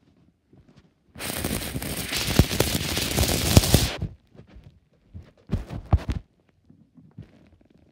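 Handling noise on the camera's microphone: a loud crackling rustle lasting about three seconds, then a few soft knocks.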